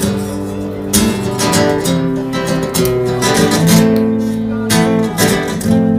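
Acoustic guitar played live, strummed chords ringing on between harder strums.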